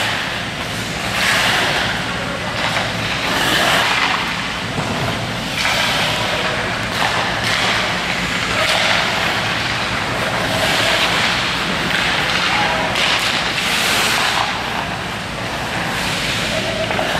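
Hockey skate blades carving and scraping on rink ice in repeated swishes every second or two, as a skater turns and crosses over, with occasional knocks.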